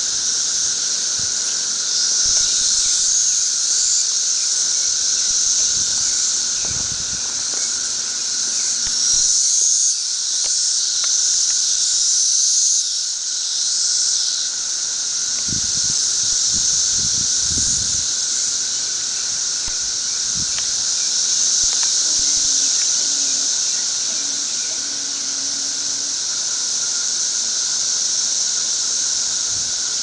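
Dense chorus of 13-year periodical cicadas: a loud, steady, high-pitched buzz from countless insects at once, with a lower steady whine beneath it.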